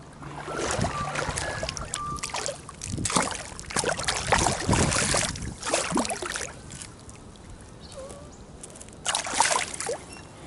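A hooked Murray cod thrashing at the water's surface as it is landed by hand, splashing in irregular bursts for several seconds, with a last flurry of splashes near the end.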